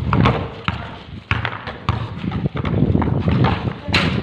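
Basketball bouncing on a concrete court: a series of dull thuds, about one every half second or so, over a steady low rumble.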